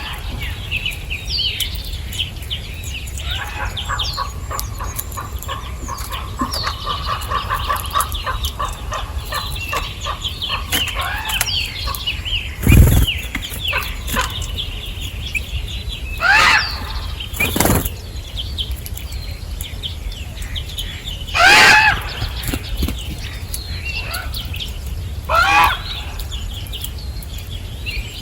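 Birds chirping and calling: a busy run of small-bird chirps with a repeated note for several seconds, then three louder harsh calls spread through the second half. Two sharp thumps stand out, the first about halfway through and the loudest sound here.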